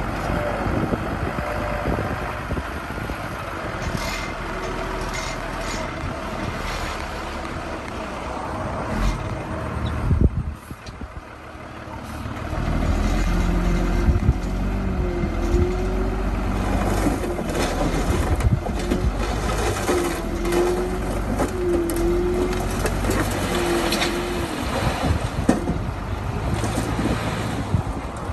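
Heavy diesel construction machinery working at close range, its engine running under load with metallic clanking. About ten seconds in, the engine eases off briefly. About two seconds later it comes back louder and deeper, with several short squeals.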